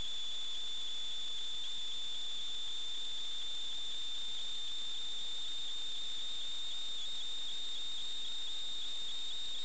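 A steady high-pitched electronic whine over a constant hiss, with a fainter higher tone above it and slight dips in pitch near the end.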